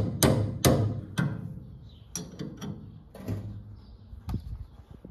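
Hammer blows on a steel gear puller clamped to a combine's drive sprocket, each strike ringing: three hard blows in about the first second, then lighter, scattered taps. The blows are meant to shock loose a sprocket stuck fast on its auger shaft.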